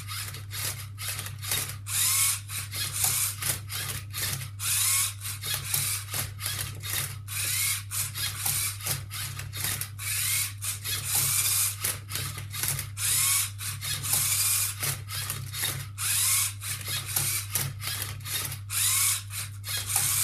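Lego Mindstorms EV3 MindCub3r robot executing its Rubik's cube solve: the EV3 motors whir in quick short bursts with brief pauses, some rising in pitch, as the turntable spins the cube and the flipper arm tips it, plastic gears and cube layers clicking. A steady low hum runs underneath.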